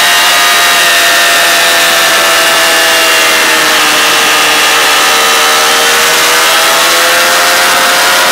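Racing motorcycle engine running at high revs, heard from on board the bike with wind rush. The engine note sinks between about three and five seconds in as the bike slows through a bend, then climbs again near the end.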